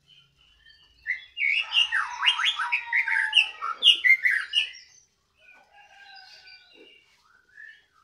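White-rumped shama (murai batu) singing loudly: a dense burst of varied whistled phrases with quick falling notes from about a second in, lasting some four seconds, then softer scattered notes.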